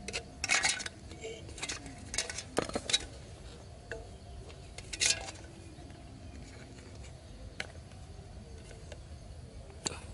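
Light metallic clicks and scrapes of thin wire being bent and worked with pliers: a cluster of sharp clicks in the first half, then only a few faint ticks.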